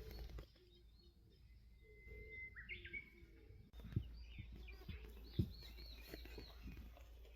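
Wild songbird calls: a thin whistled note that breaks into quick falling slurs, then a run of about five repeated chirps, over faint outdoor background. Two sharp knocks sound around the middle and are the loudest sounds.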